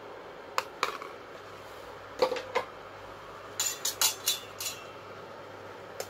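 Metal spoon tapping and scraping young coconut meat out of a plastic cup against the rim of a stainless-steel pot, in scattered single clinks. Then a brighter run of clinks as the spoon is set down in a stainless bowl and a porcelain ladle is picked up, and one more clink near the end as the ladle goes into the pot.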